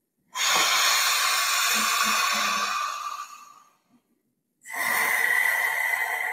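Forceful, loud breathing through a wide-open mouth with the tongue stuck out (yogic lion breath). One long harsh breath starts just after the beginning and fades out after about three seconds; after a short silence, another begins about a second later.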